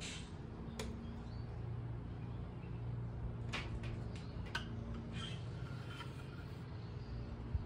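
Quiet steady low background hum with a few faint light clicks and taps, as a spirit level is held against the wall and a pencil line is marked along it.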